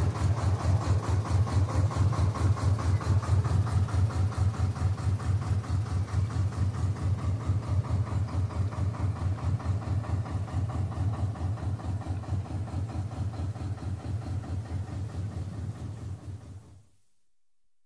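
An engine running steadily with an even, rhythmic throb, fading out about a second before the end.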